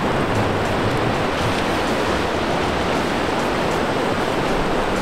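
Steady rush of surf breaking and washing onto a sandy beach.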